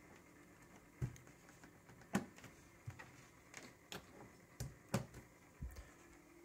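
Faint, scattered clicks and light knocks, about eight in all with the sharpest a little over two seconds in: multimeter test leads being handled and plugged into the power supply's banana-jack output terminals.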